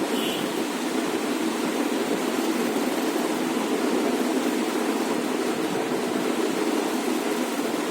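Steady rushing noise with no breaks or distinct events, heaviest in the low-middle range.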